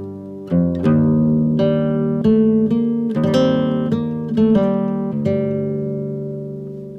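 Background music: acoustic guitar picking notes and chords, each note ringing and fading, with a long ringing chord near the end.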